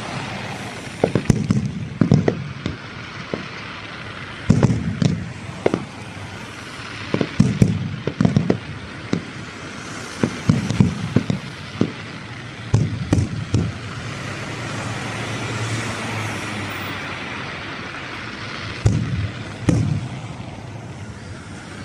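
Fireworks display: aerial shells bursting in irregular bangs, often several in quick succession, over a steady background noise. The bangs thin out for a few seconds past the middle, then pick up again.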